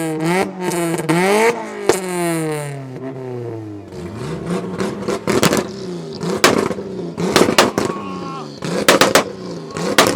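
Big-single-turbo Toyota Supra 2JZ-GTE straight-six revved up and down several times, then held on a 2-step launch limiter, firing repeated bursts of rapid bangs and crackles.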